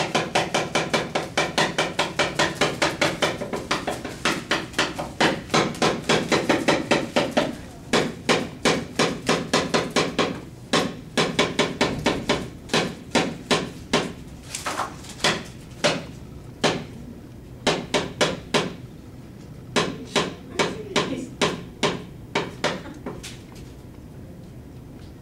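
A Balinese dalang's wooden knocker rapping fast, rhythmic strikes on the wooden puppet chest to drive a shadow-puppet battle. A dense run of about four to five knocks a second comes first. About a third of the way in it breaks into shorter, sparser clusters that stop just before the end.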